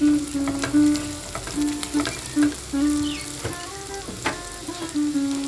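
Onions and garlic frying in mustard oil in a steel kadai, sizzling, while a spatula stirs and scrapes across the pan in short strokes. Light background music with plucked notes plays over it.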